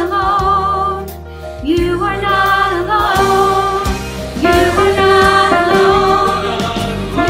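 A woman singing the alto line of a choral song in long held notes with vibrato, over a steady accompaniment. New phrases slide up into their first note about two seconds and four and a half seconds in.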